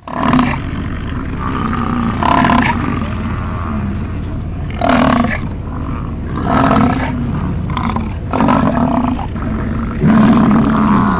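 American bison bull bellowing: a deep, continuous rumbling roar that swells louder and rougher about every two seconds, six times in all.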